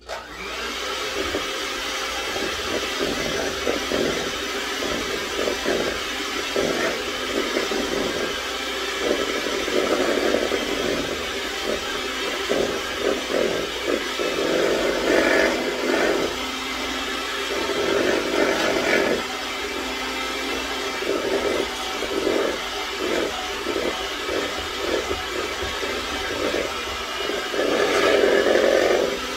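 Electric mixer starting abruptly and running steadily while it mixes shortbread cookie dough. Its sound swells and dips as the beaters work through the mix.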